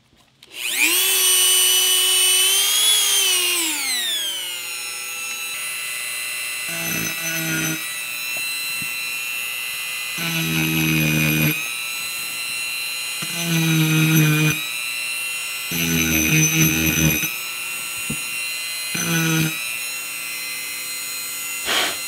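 Dremel rotary tool with a 120-grit sanding roll starts up with a high whine that falls in pitch a few seconds in. It then runs steadily, with five spells of louder grinding as the roll is pressed into the inside of a piston to take weight off it for balancing.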